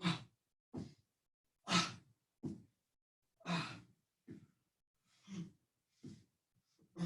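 Heavy breathing of a person straining through a floor core exercise: pairs of breaths, a louder sigh-like one then a shorter, softer one, repeating about every 1.8 seconds.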